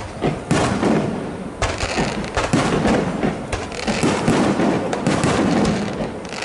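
Aerial fireworks shells bursting in a rapid, overlapping string of bangs, many sharp reports close together, with no let-up.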